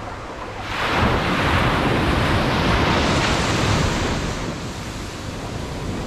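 Atlantic surf at the shoreline: a wave breaks about a second in and its foamy wash rushes up the sand, then eases off after about four seconds.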